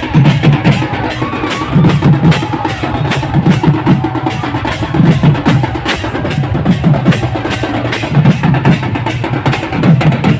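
Tribal procession drums playing a fast, steady rhythm: a large wooden barrel drum and stick-beaten drums give deep beats, with sharp stick clicks over them.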